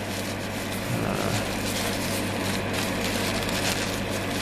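Steady machine hum with a hiss over it, unchanging throughout, like a fan or motor running in the room.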